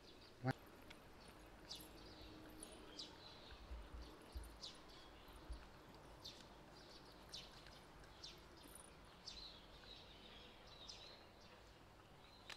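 Faint background with scattered short, high chirps of small birds, one every second or so, and a single knock about half a second in.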